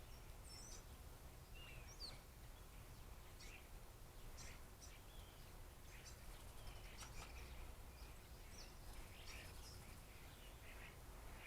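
Faint, scattered chirps and short calls from birds feeding, one quick sliding call about two seconds in, over a low steady rumble.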